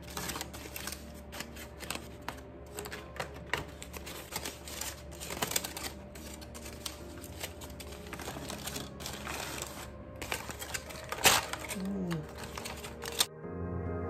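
Aluminum foil crinkling and crackling as it is unwrapped and peeled open from around a cooked roast in a foil pan, with a sharp crack near the end. About thirteen seconds in it cuts off and soft background music begins.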